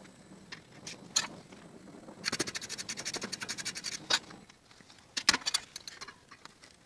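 Light metallic clicks and clinks of steel pliers and tools against a rod clamped in a bench vise, with a rapid rattling that lasts about two seconds in the middle.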